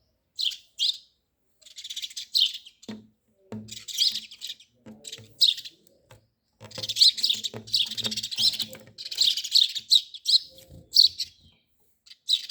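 Small birds chirping in short, quick bursts that grow busier about halfway through, with soft low knocks scattered among the chirps.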